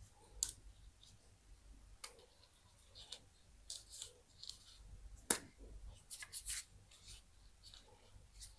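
Irregular small clicks and scrapes of tools against the plastic and metal parts of an old ZTE mobile phone being taken apart, with one sharp click about halfway through and a quick run of clicks a second later.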